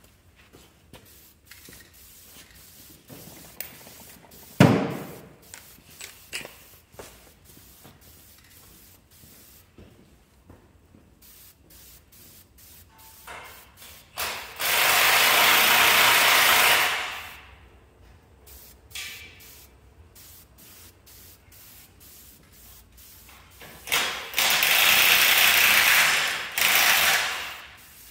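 Aerosol spray-paint can spraying in two long hisses of about three seconds each, one about midway and one near the end. Before them come scattered small clicks and a single sharp knock about four and a half seconds in.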